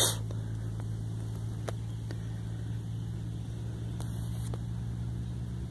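Steady low machine hum with a couple of faint clicks.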